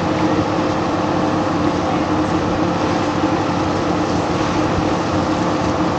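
A steady mechanical drone with a constant hum, unchanging throughout.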